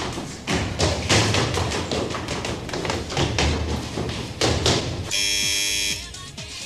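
Quick footsteps running up stairs, a rapid run of knocks and thuds. About five seconds in, an electric doorbell buzzer sounds once for about a second.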